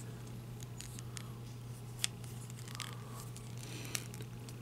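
Plastic parts of a small Transformers action figure clicking and rubbing as it is handled and folded into jet mode: a few short sharp clicks, the loudest about two seconds in, over a faint steady low hum.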